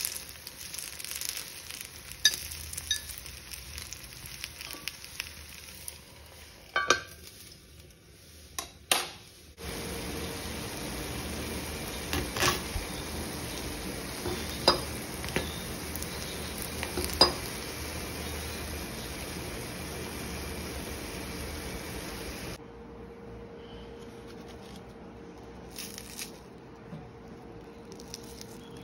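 Paniyaram frying in oil in a metal paniyaram pan, a steady sizzle with a few sharp clinks of a metal tool against the pan as the dumplings are turned.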